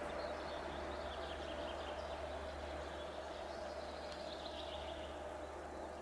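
Quiet forest ambience: a songbird trills faintly in the distance, once about a second in and again around four seconds, over a low steady background hum.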